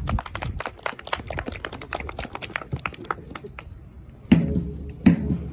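Hand clapping: a crowd applauding in many quick, uneven claps. About four seconds in, a single loud drum beat comes in, the start of a supporters' drum rhythm.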